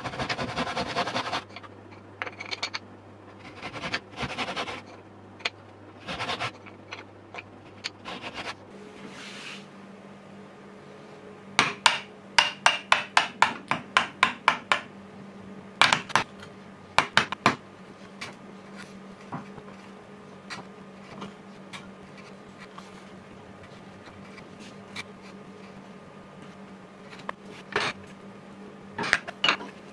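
A small brass-backed hand saw cutting a wooden block with quick strokes, followed by scattered strokes. About halfway through comes a run of sharp clicks, about four a second, as a chisel cuts into the end of a small hardwood stick, with a few more chisel cuts near the end.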